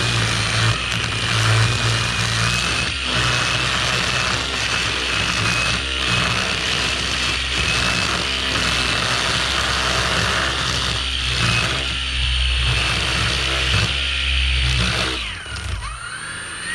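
String trimmer running at cutting speed through long grass, with a steady high whine. Near the end it slows with a falling pitch, then speeds up again.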